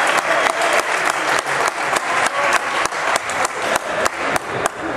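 Spectators clapping in unison in a steady rhythm, about three to four claps a second, over general crowd noise.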